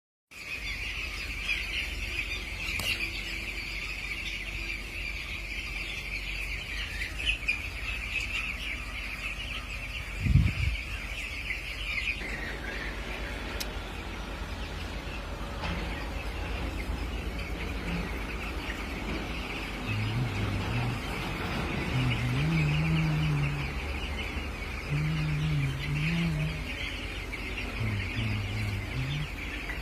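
A flock of broiler chicks cheeping all together, a dense steady chorus of high peeps. A single thump comes about a third of the way in, and short low-pitched tones come and go in the last third.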